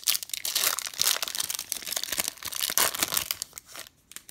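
Wrapper of a Topps Finest baseball card pack crinkling and tearing as it is opened by hand, a dense run of small crackles that dies away about three and a half seconds in.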